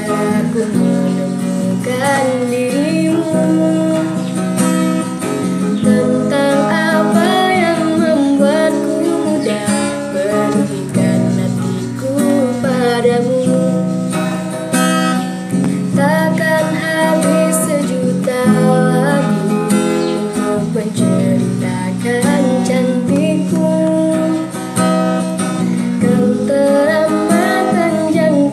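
A woman singing a song to her own strummed acoustic guitar accompaniment.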